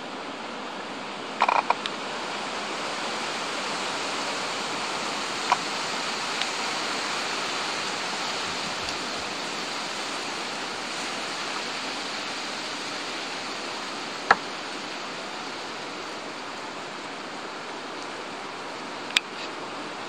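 Steady rushing outdoor background noise, with a few short sharp clicks scattered through: a small cluster about a second and a half in, and the loudest single click about two-thirds of the way through.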